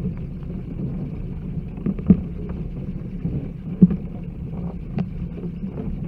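Bat roost ambience: a steady low rumbling noise with a few sharp clicks, the loudest about two and four seconds in.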